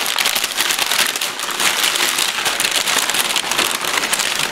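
Brown kraft packing paper being pulled and crumpled by hand, a dense continuous crackling and rustling.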